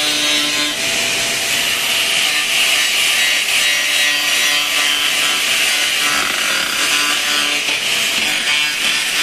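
Handheld power grinder running continuously against the sheet metal of a car's rear quarter panel: a loud, steady grinding whine.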